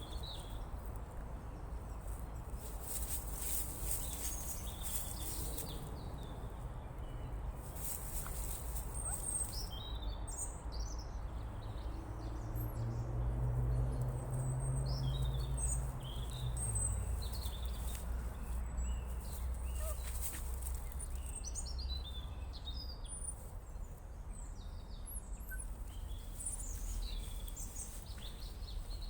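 Songbirds chirping and singing in short high calls, over a steady low rumble; a low hum rises and stays louder for a few seconds around the middle.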